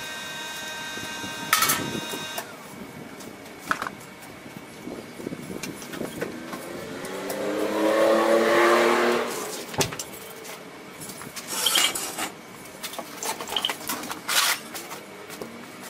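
A vehicle driving past, building up to its loudest about eight seconds in and fading away, its engine pitch dropping as it goes by. Scattered light taps and clanks are heard around it.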